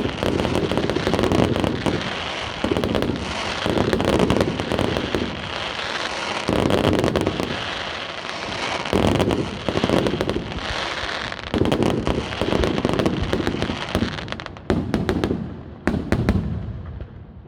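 Aerial fireworks display: shell bursts every second or two, with dense crackling between them, thinning out near the end.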